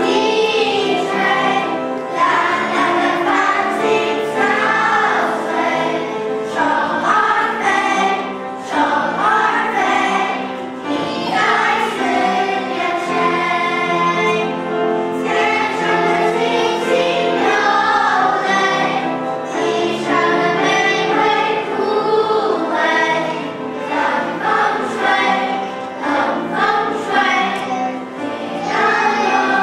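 Children's choir singing a song together.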